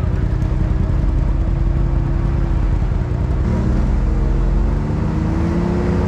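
Side-by-side UTV engines running at low speed in a river crossing. A little over three seconds in, a further engine note comes in and rises in pitch as a machine throttles up and pulls away.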